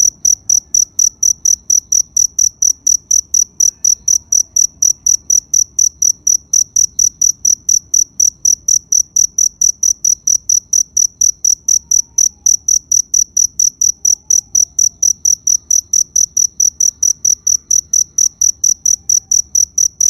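Cricket chirping steadily in an even, unbroken rhythm of about three high-pitched chirps a second.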